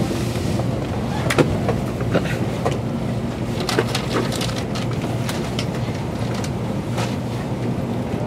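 Interior running noise of an N700 series Shinkansen car: a steady low rumble with irregular sharp clicks and clacks from the wheels on the track.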